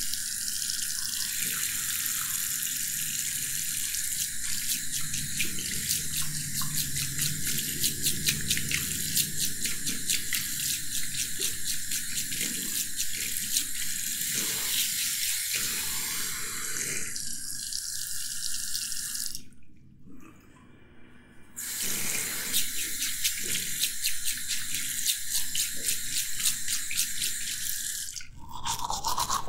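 Water running from a basin tap into a ceramic washbasin, a steady splashing hiss. It stops for about two seconds around two-thirds of the way through, then runs again.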